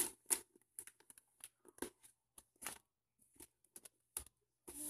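Hands rubbing and pressing sticky vinyl contact paper onto a cardboard box to smooth out air bubbles: a string of short, irregular rustles and scrapes with brief gaps between them.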